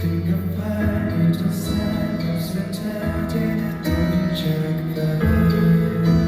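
Live concert music: a Thai-language pop song played on stage, with held chords throughout.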